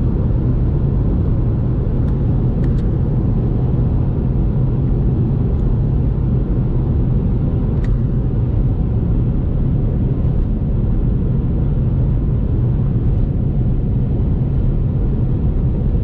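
Steady low rumble of a car driving, even and unchanging throughout.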